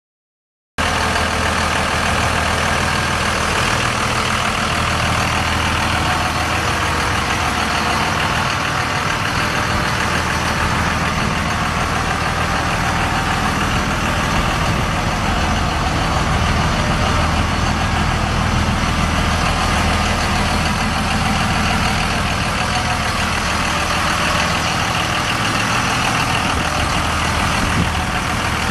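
Cummins 5.9-litre inline-six diesel engine of a 2001 Dodge Ram 2500 pickup idling steadily.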